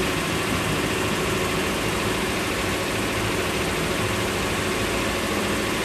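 Motorboat engine running steadily underway, with the rush of wind and water over the hull.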